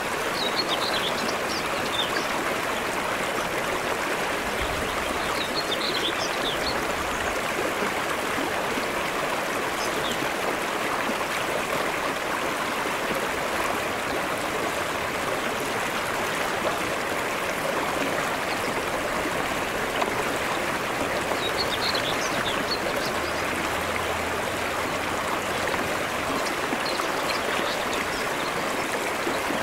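Shallow stream flowing steadily over flat rock, with a few faint high chirps now and then.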